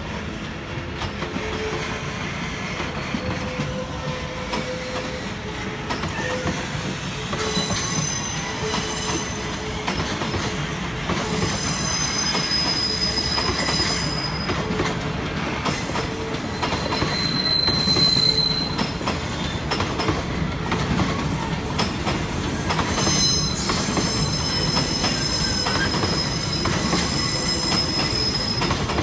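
Empty freight container flatcars rolling slowly over yard tracks: a steady rumble of wheels on rail, with several spells of high-pitched wheel squeal from about a quarter of the way in.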